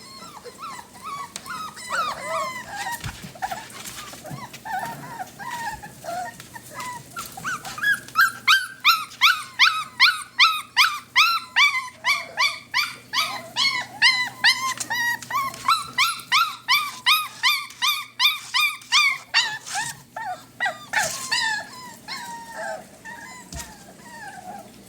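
Several puppies whining and yelping for food at once. About a third of the way in, the cries build into a loud, fast run of yelps at around three a second, then ease back to overlapping whines near the end.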